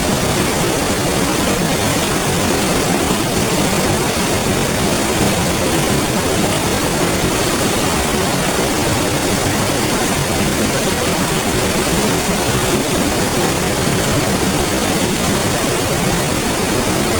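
River water flowing, a steady, even rush with no breaks.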